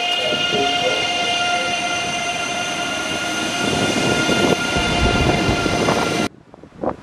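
Deutsche Bahn ICE 3 high-speed electric train rolling slowly past along the platform: a steady high whine of several held tones over wheel-and-rail rumble, which grows louder in the second half. The sound cuts off abruptly near the end, leaving faint wind noise on the microphone.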